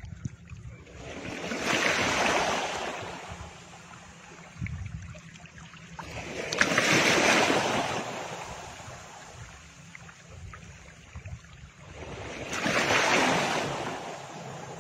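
Ocean waves washing in and drawing back, three slow swells about five to six seconds apart, over a steady low rumble.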